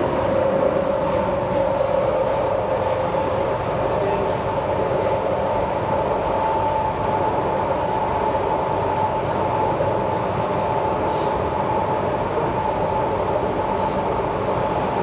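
Inside a C751B metro train car running at steady speed: an even rumble from the wheels and running gear, with a steady whine above it. A lower tone fades away over the first few seconds.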